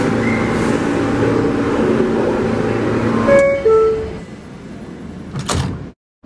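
R160 subway train standing at the platform with a steady hum, then about three seconds in its two-note descending door-closing chime sounds. After the chime it is quieter, with a brief burst of noise shortly before the sound cuts out.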